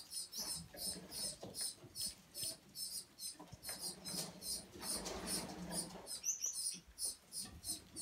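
Small cage finches chirping in a quick, even series of high chirps, about four a second, with soft low rustling partway through.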